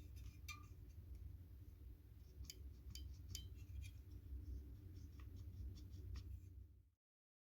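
Faint, scattered light clicks and ticks over a low steady hum, then the sound cuts off abruptly near the end.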